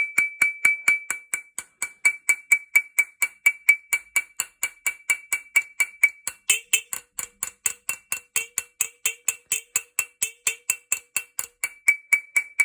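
Small hammer tapping steadily on a steel shotgun action, about four light strikes a second, each with a short high metallic ring; a lower ring joins about halfway through. The percussion works 35 years of rust out of the seized action to free rusted-in screws.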